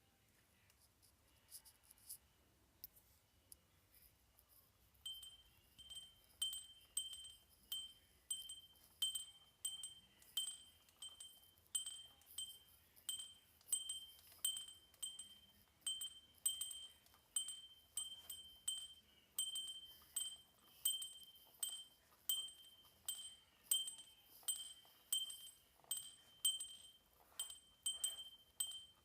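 Handheld metal bell rung steadily, about two strikes a second, each ring a clear high tone. A few scattered light strikes come first, and the regular ringing begins about five seconds in.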